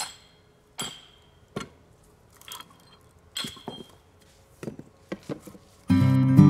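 Three sharp knocks about a second apart as a froe is driven into the end of a short log, each with a brief high ring. Then the wood cracks and tears in a series of snaps as the froe is levered and the log splits. Acoustic guitar music comes in near the end.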